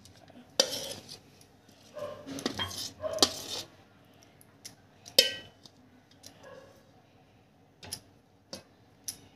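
A steel spoon scraping and clinking against a steel pot and a glass jar as amla (Indian gooseberries) in syrup are scooped and tipped from pot to jar, in short scattered clinks and scrapes.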